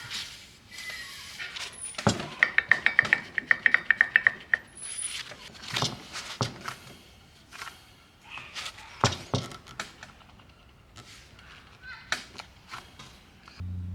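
Hand tools working on car parts: scattered metal knocks and clanks, with a quick even run of about twenty sharp ticks about two seconds in.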